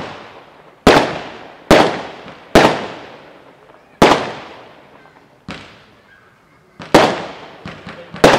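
A consumer firework battery firing shot after shot: sharp bangs about once a second, each followed by a fading echo, as small coloured star bursts break overhead.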